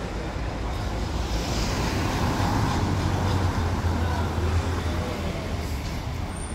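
Street traffic: a motor vehicle passing, its low engine rumble and road noise swelling over a couple of seconds and then easing off.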